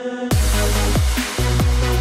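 Electronic background music; a heavy bass line of short notes that slide downward in pitch comes in sharply a moment after the start.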